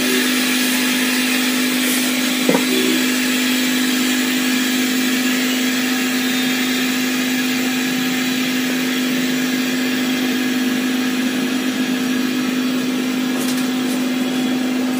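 Screen-lamination bubble remover (Baba Tools Bubble Remover V3) running its pressure cycle: a steady electric hum with an even hiss over it, with one small click a couple of seconds in.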